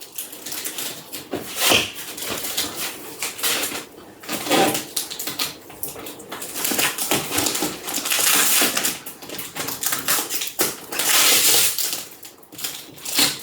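Plastic packaging being handled and pulled about, crinkling and squeaking in irregular rustles, with louder stretches about 8 and 11 seconds in.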